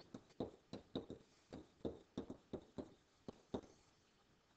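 Stylus tip tapping and clicking on a pen-input writing surface as words are handwritten: a quick, irregular series of light taps that stops about a second before the end.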